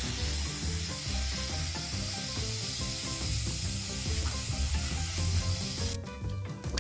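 Garden hose spraying a steady jet of water, a continuous hiss over background music; the hiss cuts off suddenly near the end.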